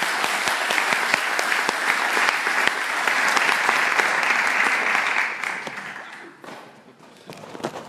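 Audience applause: dense clapping that dies away about five to six seconds in.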